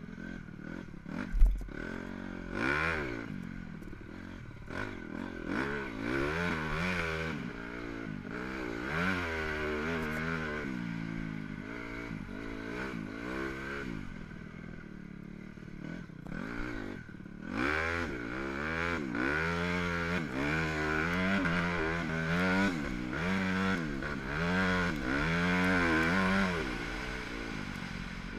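Dirt bike engine revving up and falling off again and again as the bike is ridden hard around a motocross track, heard close up from on board. About a second and a half in there is one sharp knock.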